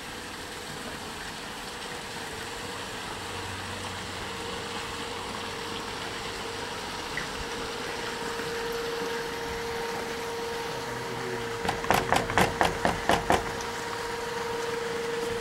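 A steady machine hum holding one tone, slowly growing louder, with a quick run of about eight sharp clicks about twelve seconds in.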